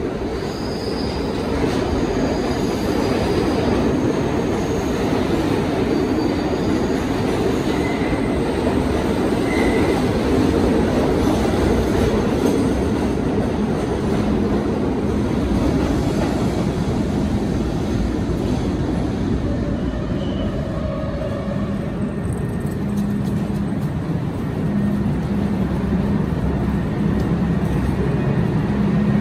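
Budd R32 subway train running into the station: a loud, steady rumble of steel wheels on rail, with a few short high wheel squeals in the first half. A low steady hum comes in about halfway through.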